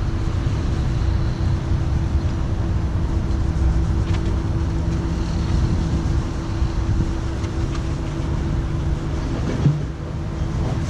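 Steady mechanical hum over a low rumble, from the cooling fans and pump running while a Tesla Model S supercharges. There is a short thump near the end.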